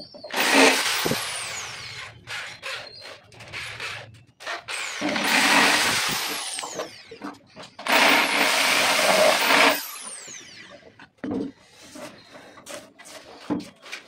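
Corded hand drill boring into white laminated cabinet board in three bursts of about two seconds each, the motor whining down after each release. Short knocks and handling clatter fall between the bursts.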